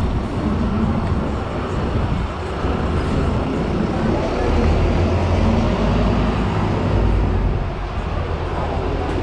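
Busy city-street ambience: a steady low rumble of road traffic, with a double-decker bus running alongside the pavement, and indistinct voices of passing pedestrians.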